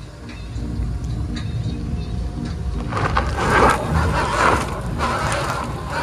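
SUV engine pulling under load with a steady low rumble. About three seconds in, a front tyre spins in loose dirt and sprays soil in three rushing surges as the vehicle struggles for traction over uneven ground.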